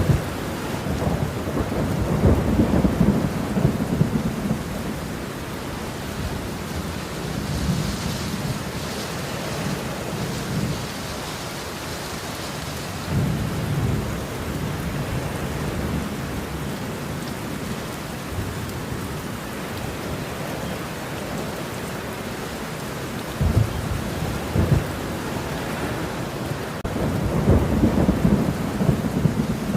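Steady rain with thunder rumbling repeatedly, the heaviest rolls a few seconds in and again near the end.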